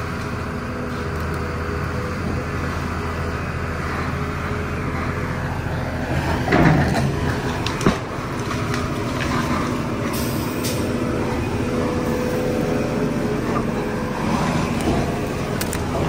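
Volvo EC480DL excavator's diesel engine running steadily as it digs. The engine note surges louder about six and a half seconds in, and a sharp knock follows about a second later.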